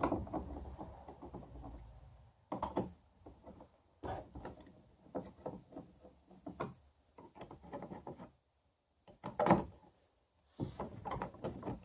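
Handling sounds of a kayak's rudder control knob being worked loose and pulled off: scattered knocks, clicks and rubbing, with short pauses between them.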